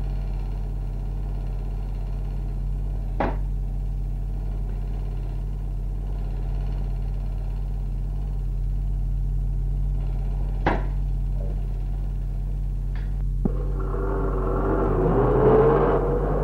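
Steady low hum and hiss of an old film soundtrack, broken by three sharp clicks. About three-quarters of the way through, a noisier sound with a wavering tone comes in and swells near the end.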